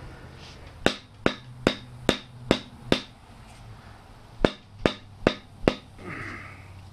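Rubber mallet striking the end of an Osage orange axe handle to drive the axe head further on and seat it: six quick blows about 0.4 s apart, a short pause, then four more.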